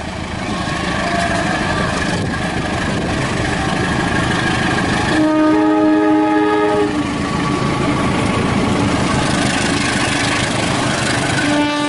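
KAI diesel-electric locomotive passing close by with its engine running and wheels on the rails, loud and growing louder as it nears. About five seconds in its multi-tone air horn sounds a chord for under two seconds, and another blast starts near the end: the driver's horn greeting to people at the lineside.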